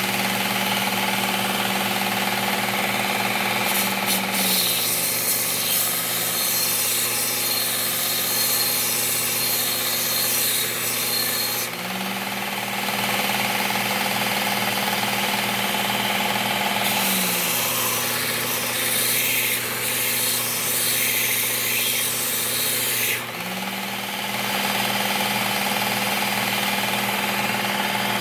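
Work Sharp Ken Onion Elite belt sharpener running while the edge of a steel lawn mower mulching blade is ground on its abrasive belt. Two long grinding passes of several seconds each, starting about four seconds in and again past halfway, raise a harsh grinding hiss. Between them only the motor and belt run on with a steady hum.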